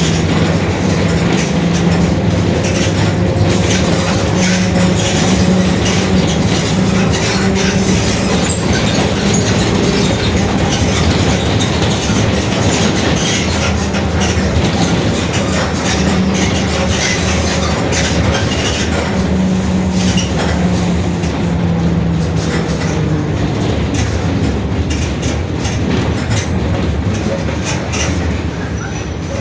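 Mercedes-Benz OF-1721 bus's differential droning very loudly while the bus is under way, over constant rattling and clatter. The drone wavers slightly and dies away over the last few seconds.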